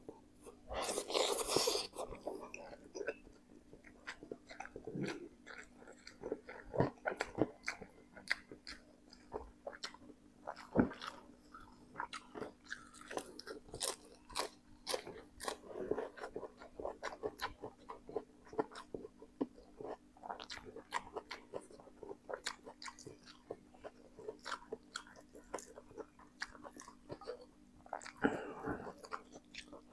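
Close-miked mukbang eating: a man slurps a mouthful of spicy instant noodles about a second in, then chews with many wet mouth clicks and crunches, including bites of fresh lettuce leaf.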